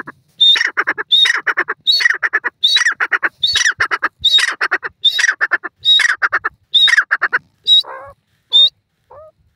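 Grey francolin (desi teetar) calling loudly in a fast, steady series of repeated phrases, about one a second. Each phrase is a sharp high note followed by a quick rattle of lower notes. Near the end the series breaks off into a few softer single notes.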